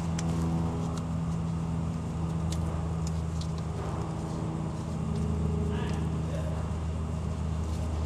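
Steady low machine hum at a constant pitch, with a few faint clicks of a taped wiring harness being handled.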